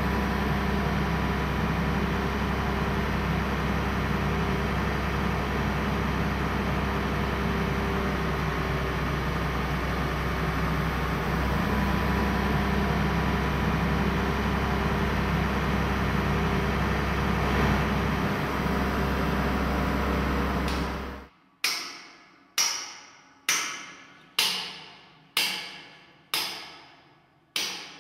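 Steady engine drone of a mobile crane with a strong low hum. About twenty seconds in it cuts off, and a run of sharp knocks follows, evenly spaced a little under a second apart, each ringing out briefly.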